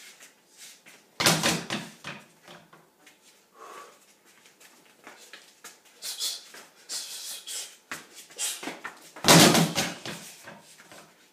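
Two loud thuds, one about a second in and one about nine seconds in, each ringing on briefly, from a fighter drilling strikes and a spinning move on a gym floor, with lighter scuffs and short hissing noises between them.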